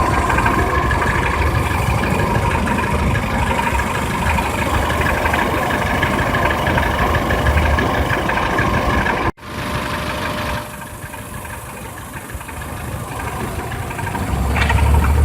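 Peugeot 307 engine running with an abnormal noise. The sound cuts off abruptly about nine seconds in, then resumes quieter and grows louder near the end.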